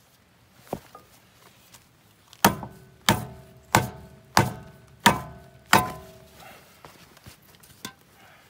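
A metal tool striking steel on a tractor's front axle knuckle: six sharp strikes about two-thirds of a second apart, each leaving a short metallic ring. A lighter knock comes a little before them and faint clicks near the end.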